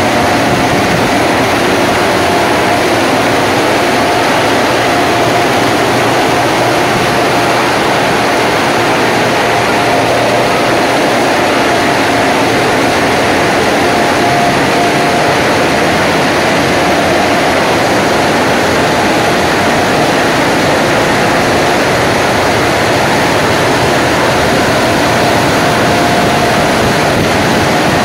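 PDQ ProTouch automatic car wash machinery running: a loud, even rush with a steady whine through it, unbroken throughout.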